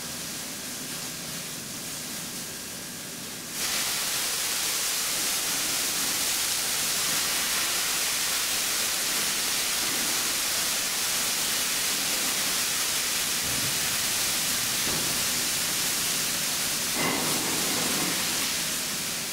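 Mushrooms sizzling in a hot sauté pan, then a sudden, much louder hiss about three and a half seconds in as wine is poured into the pan, with steam coming off it. The hiss holds steady and eases off near the end.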